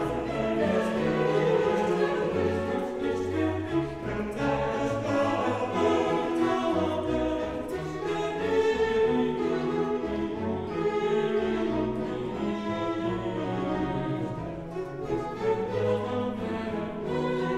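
Orchestral music with choral singing, sustained and dense with no pauses.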